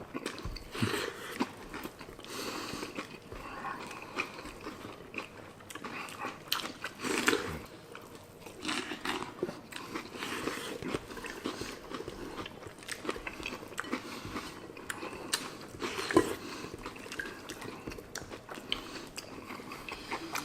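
People chewing and crunching mouthfuls of mixed breakfast cereal (Fruit Loops, Rice Krispies, Corn Pops, Cinnamon Toast Crunch), with many short sharp clicks.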